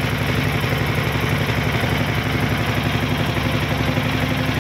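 Small passenger boat's engine running steadily while under way, with a fast, even pulsing beat that does not change.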